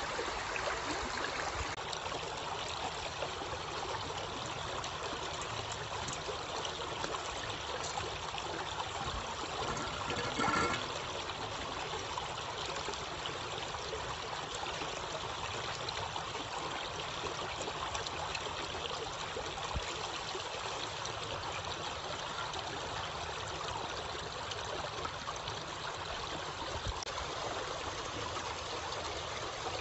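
Stream water rushing and trickling over rocks in a steady wash of noise, with one short, louder sound about ten seconds in.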